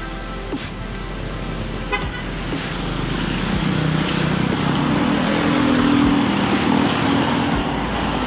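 Street traffic, with cars and motorcycles driving past. From about three seconds in, a vehicle engine grows louder, passes close, and eases off near the end.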